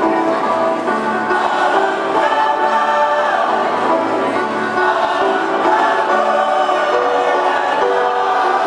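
Mixed choir of men's and women's voices singing in several parts, with long held notes.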